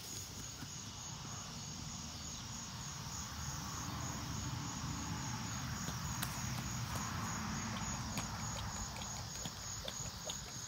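Insects chirping in a steady, high, pulsing trill, over a low rumbling noise.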